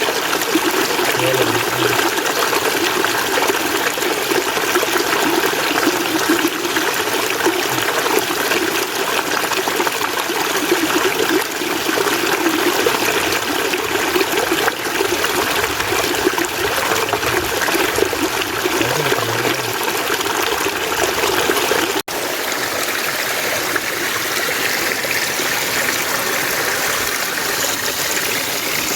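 Mountain stream water running and trickling over rocks, a steady dense rush. About three-quarters of the way through it cuts out for an instant and resumes with a slightly different sound.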